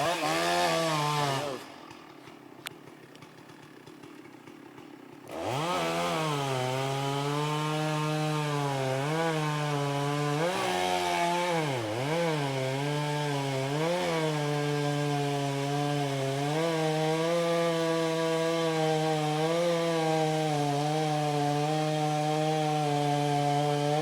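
Two-stroke chainsaw running at high speed in a brief burst, then dropping away for about four seconds. It revs back up and runs for the rest of the time, its pitch sagging and recovering again and again as the chain bites into the wood of a tree being felled.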